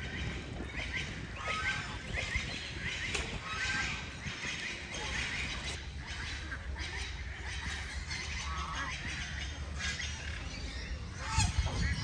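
Birds at a pond calling in many short, overlapping calls, over a low steady rumble.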